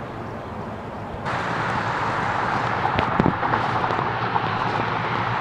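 Outboard motor on an aluminium jon boat running steadily as the boat moves on the water. It jumps louder about a second in, and a few sharp knocks come near the middle.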